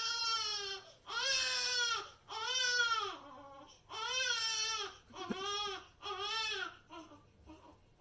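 A cat meowing loudly over and over: about six long, drawn-out wailing meows in a row, rising and falling in pitch, then a few weaker, shorter ones near the end.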